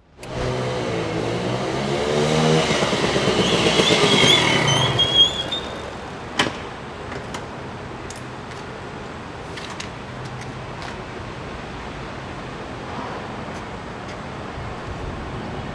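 Suzuki VanVan motorcycle's single-cylinder four-stroke engine running as the bike rolls in and slows to a stop, with a brief high squeal about four to five seconds in. A sharp click follows about six seconds in, then steady street background with faint knocks.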